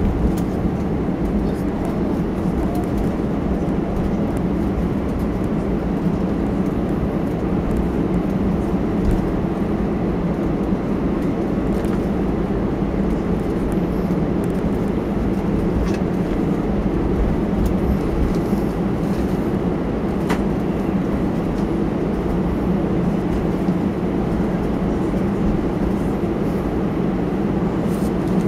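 Steady cabin noise of an Airbus A320 taxiing: the engines at low idle thrust and the low rumble of the airframe rolling on the taxiway, with a couple of faint clicks.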